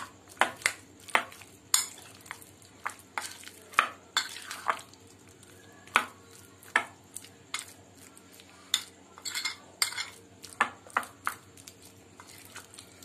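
A spoon stirring marinade-coated chicken pieces in a glass bowl: irregular clinks and scrapes of the spoon against the glass, a few per second at times, with pauses between.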